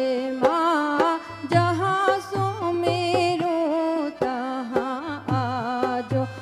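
Devotional bhajan: a singer's voice holding wavering, ornamented notes over a regular drum beat.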